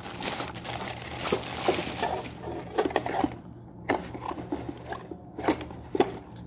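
Clear plastic bag crinkling as a hot air gun handpiece is pulled out of it for the first couple of seconds, then scattered light clicks and knocks as the handpiece and its cable are handled.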